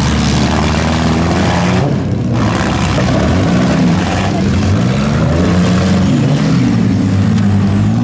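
Several demolition derby compact cars' engines running and revving at once, their pitches rising and falling as the cars push and ram in the dirt.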